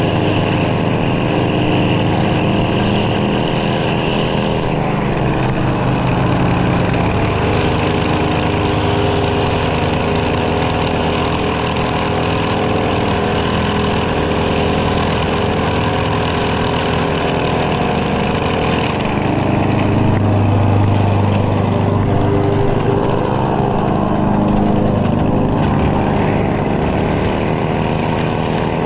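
Lawn mower engine running loudly and steadily, its pitch shifting a couple of times as the load or throttle changes.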